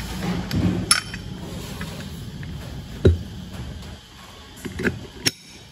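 Steel sprocket and rusty bicycle chainring handled and fitted together: a few sharp metal clinks, about a second in and again near the end, with a louder, duller knock around the middle.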